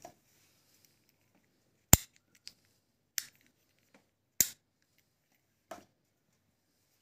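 Four sharp clicks about a second and a quarter apart, the first and third loudest, with a few fainter ticks between them.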